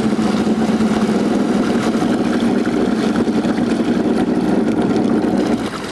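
Engine of the towing watercraft idling steadily, a constant low hum with water and wind noise, heard from on board; it cuts off sharply near the end.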